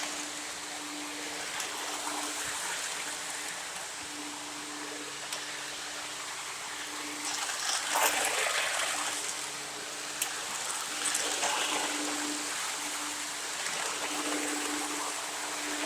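Lionel O gauge model train running on its track: a steady rushing noise with a faint low hum that comes and goes, swelling briefly about halfway through.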